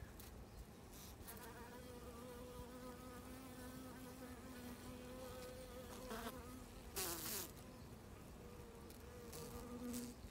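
Honey bees buzzing over the open top bars of a hive: a steady hum that breaks off briefly and returns. A short burst of noise cuts in about seven seconds in.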